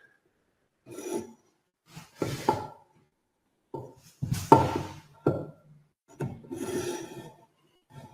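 Jointer plane cutting shavings along the edge of a board: about five separate strokes of rasping wood-on-steel noise with short pauses between them.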